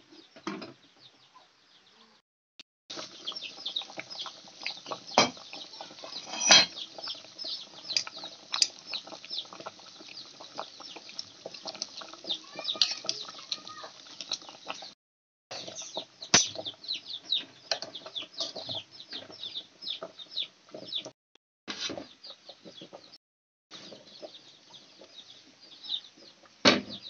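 Metal clinks and knocks of a knife and tongs against an aluminium pressure cooker as boiled corn cobs are lifted out, a few sharp knocks standing out. Many short high bird chirps run in the background.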